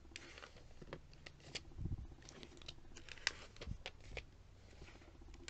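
Pages of a glossy printed catalogue being riffled and turned by hand: faint paper rustles and flicks, with two soft thumps about two seconds and nearly four seconds in.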